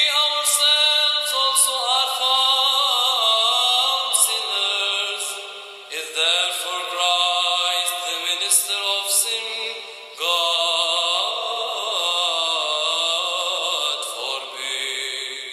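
A solo voice chanting the Epistle reading on long sustained notes, in the style of Byzantine-rite liturgical cantillation. New phrases begin about 6 and 10 seconds in, and the chant fades near the end.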